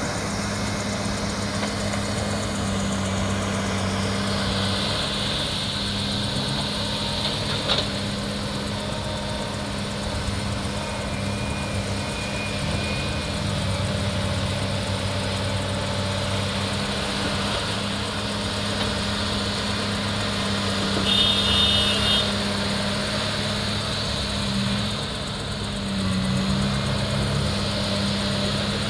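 Diesel engines of a hydraulic excavator and coal dump trucks running steadily as the excavator digs and loads. There is a single sharp knock about eight seconds in and a brief high beep about three-quarters of the way through.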